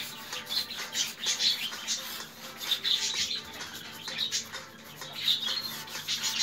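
Pet budgerigars (Australian parakeets) chattering, a continuous string of short, high chirps.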